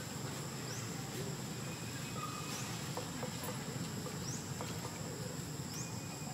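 Insect ambience: a steady high drone with short rising chirps every second or so, over a low steady rumble.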